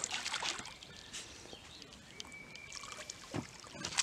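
Water splashing and sloshing in irregular bursts as a freshly netted carp is handled in a landing net in shallow water, loudest right at the start and again about three seconds in.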